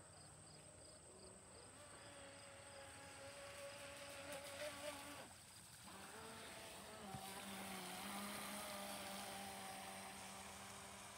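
Radio-controlled speedboat's motor whining faintly as it runs across the water, the whine dropping out briefly about five seconds in during a turn, then rising again as the boat speeds past.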